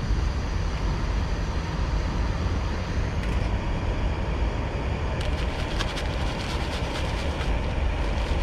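Steady low rumble of road traffic, with the steady hiss of a small gas canister camping stove burning under a pan. From about five seconds in, a plastic bag crinkles as it is handled.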